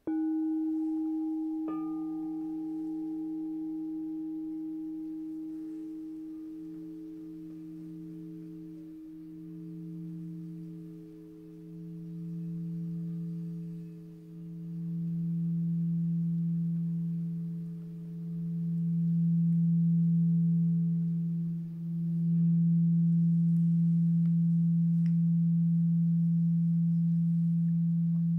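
Two singing bowls struck in turn, the second and lower one about two seconds in, each ringing with a clear pure tone. The lower bowl's hum then sustains, swelling and fading in slow waves and growing louder toward the end.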